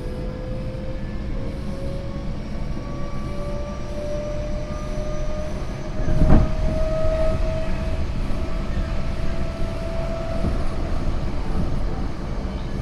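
Tokyo Metro 08 series train with Mitsubishi IGBT-VVVF control running and picking up speed: the traction motors' whine rises slowly in pitch over the rumble of wheels on rail. A single loud clack comes about six seconds in.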